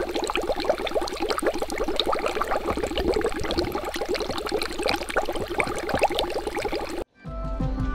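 Dense, rapid bubbling of water, a continuous stream of small quick bubble blips without any beat, cutting off suddenly near the end.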